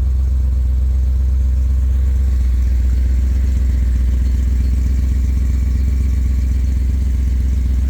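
BMW E38 740's 4.4-litre V8 idling: a steady, even low hum that does not rise or fall.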